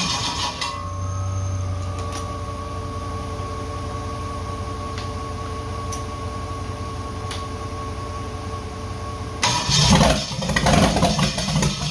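Rebuilt Holden 4.2-litre 253 V8 being cranked over on its starter motor, a steady even cranking for about nine seconds that does not catch: the engine is not getting fuel. It cuts off suddenly near the end, and a louder, rougher noise follows.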